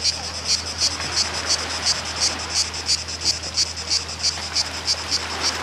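Cicadas singing in a high, rasping chirp that pulses evenly about three times a second.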